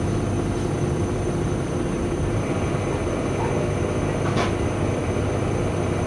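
Front-loading washing machines running a quick wash cycle, their drums tumbling wet laundry with a steady motor rumble. A single sharp click about four seconds in.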